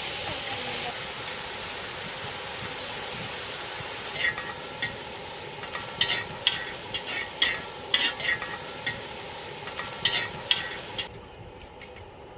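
Meat sizzling steadily on a hot grill, with a scatter of sharp clicks over the sizzle through the middle. The sizzle cuts off suddenly near the end.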